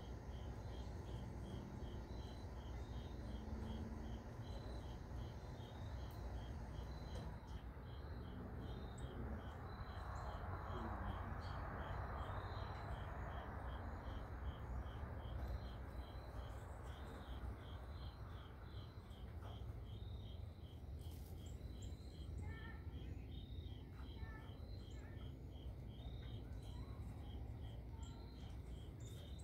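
An insect chirping in a fast, even rhythm without a break, over a low steady rumble; a broad wash of noise swells and fades about halfway through.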